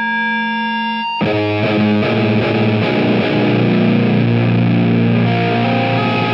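A steady held tone rings, then about a second in an electric guitar comes in through the EAE Longsword drive pedal set very hot: MOSFET clipping, drive high, mids scooped. It plays heavy, thick distorted chords into a dark plate reverb.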